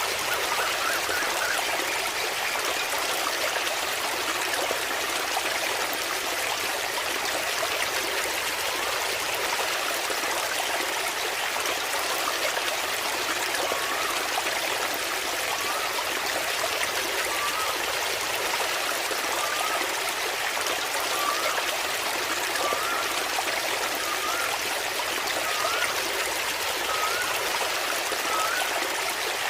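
Water falling and splashing steadily from a small waterfall, an even rushing hiss with no breaks. Over the second half, a short rising chirp repeats about every second and a half behind the water.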